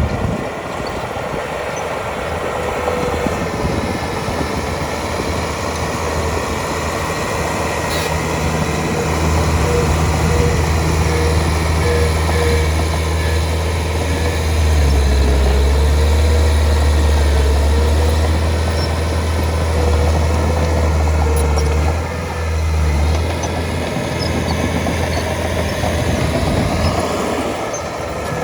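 Heavy diesel engine of earthmoving machinery running steadily with a deep hum. It grows louder about a third of the way in and eases off again near the end.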